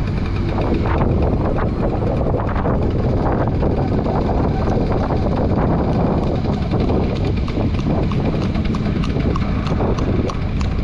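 Classic Bajaj Chetak scooter's two-stroke engine running while riding, with wind on the microphone and horse hooves clip-clopping on the tarmac, the hoof clicks coming thicker in the second half.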